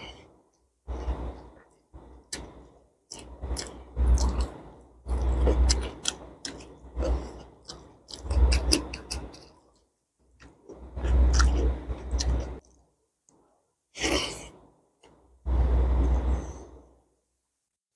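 Close-miked chewing and mouth smacking of meat curry and rice, in repeated bursts of a second or two with wet clicks, broken by short pauses.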